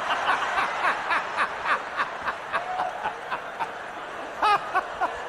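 Crowd laughter, a dense wash of many people laughing, with one louder voice breaking through about four and a half seconds in.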